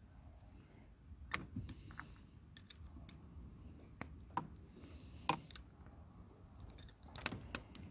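Scattered faint metallic clicks and clinks at irregular intervals as the bolts are taken out of a battery terminal clamp.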